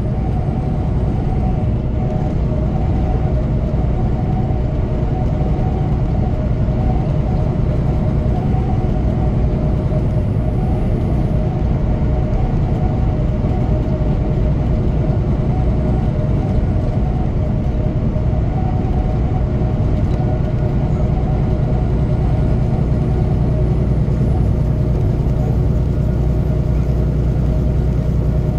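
Steady drone of a semi truck's engine and tyres inside the cab, cruising at highway speed with a low, even rumble.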